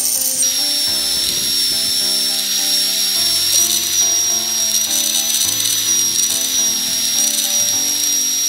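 Background music over the steady high whine of an electric drill spinning a cloth buffing wheel, with an aluminium grinder gear housing pressed against it for polishing. The whine drops in pitch shortly after the start.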